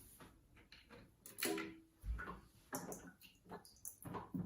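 Scattered light clicks and knocks of plastic parts being handled as the new cistern fill valve's plastic washer and nut are screwed on and tightened, with one louder rattle about a second and a half in and a dull thump just after.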